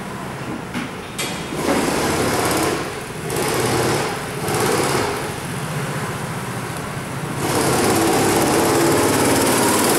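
Small petrol engines of children's go-karts running on a kart track, the buzz swelling several times as karts pass close and loudest in the last few seconds.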